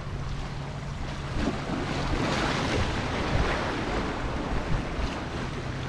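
Sea waves washing and breaking against shoreline rocks, with wind buffeting the microphone; the wash swells up about a second and a half in.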